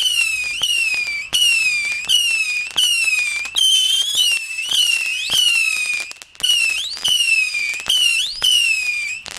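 Whistling firework going off: a rapid string of loud, shrill whistles, about three every two seconds, each starting abruptly and falling in pitch.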